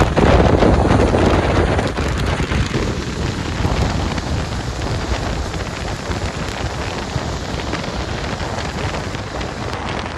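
Car driving on a wet, slushy highway: a steady hiss of tyres on the wet road mixed with wind and road noise. It is loudest in the first couple of seconds and eases off gradually.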